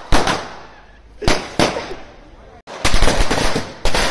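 Firecrackers going off: sharp, loud cracks, a few spaced apart in the first half, then a rapid string of bangs crowding together in the second half.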